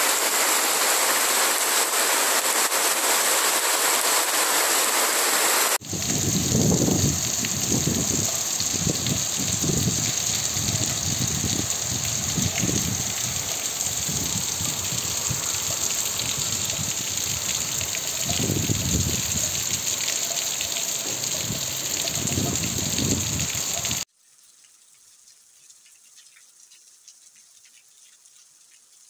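Heavy rain pouring down in a steady rush. About six seconds in it changes abruptly to another downpour with uneven low gusts under the hiss. A few seconds before the end it drops to faint rain.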